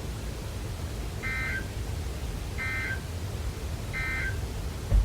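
NOAA Weather Radio EAS SAME header: three short, identical bursts of data tones about a second and a half apart, the digital code that opens a new alert, over a steady low radio hum. A brief low thump near the end.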